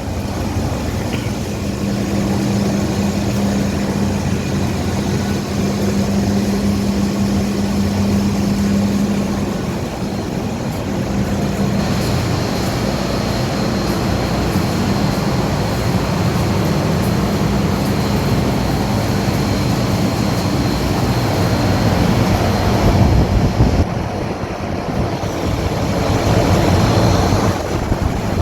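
Fans and air-conditioning units running: a steady drone with a low hum, joined by a faint high whine from about twelve seconds in.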